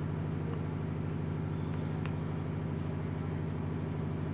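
Loudspeaker on a homemade single-transistor BC547 amplifier giving a steady low hum, with no music on its input while the audio plug is out of the phone. A couple of faint clicks as the plug is handled.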